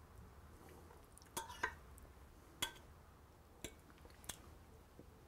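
A person eating roast chicken with a fork: faint chewing with about five short, sharp clicks from the fork and plate.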